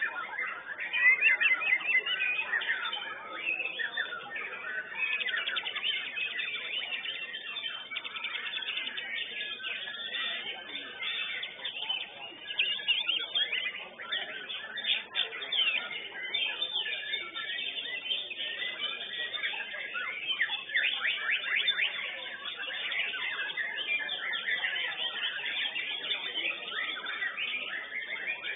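White-rumped shama (murai batu) in contest song: a continuous dense run of rapid, varied high whistles and chirps with no pause.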